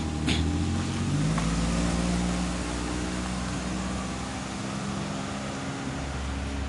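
A motor vehicle's engine running close by, its pitch rising about a second in and then holding steady, over steady street noise. There is a brief click near the start.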